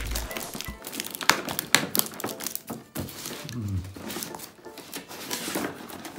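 Kitchen knife scraping and slicing through packing tape on a cardboard box, with the tape crinkling and sharp clicks and knocks as the box is handled and turned.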